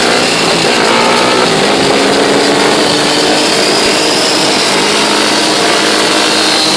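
Quad bike (ATV) engines running continuously at speed, their pitch drifting up and down with changes in revs.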